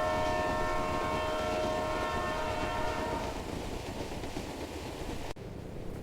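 Train horn sounding a steady chord of several tones for about three seconds over the low rumble of the moving train; the rumble runs on after the horn stops, then drops suddenly to a quieter background near the end.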